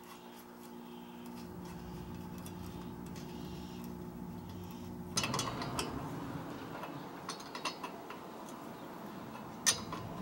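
Light metallic clinks and taps from about halfway in, with one sharper click near the end, as the steel pinion guard and its U-bolts are handled into place. A steady low hum runs under the first half.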